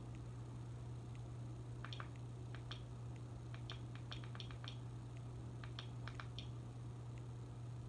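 Small clicks of a Fire Stick remote's circular navigation pad being pressed, some single and some in quick runs of several, over a steady low hum.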